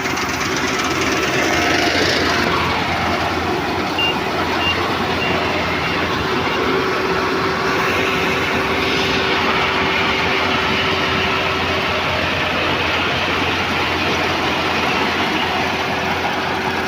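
Combine harvester running steadily, engine and machinery together, with a few short high beeps about four seconds in.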